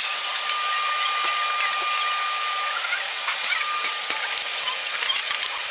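Steady hiss with a thin high whine that drops out for about a second midway, over scattered light clicks and taps of small metal hardware being handled.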